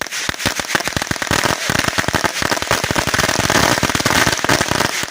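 Firecrackers going off: a sudden start, then a fast, unbroken chain of sharp bangs, many each second.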